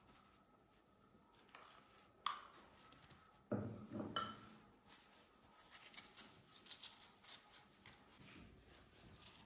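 A metal spoon knocking and scraping against clay bowls while a soft white topping is spooned onto rotis: one sharp click about two seconds in, louder knocks near the middle. Then a hand tearing and crumbling the flatbread in the bowl, with soft rustling and small clicks.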